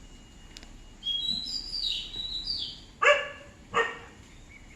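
A bird singing in a run of high chirps, then a dog barking twice, about three seconds in.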